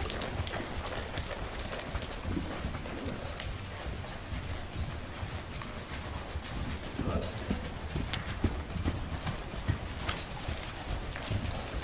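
Hoofbeats of a KWPN (Dutch warmblood) horse being ridden, a continuing run of irregular thuds and clicks, over a low steady rumble.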